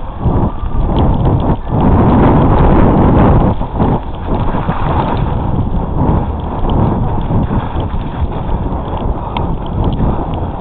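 Wind rushing over the microphone and a mountain bike rattling and bumping over a rough woodland trail at speed, loudest about two to three seconds in.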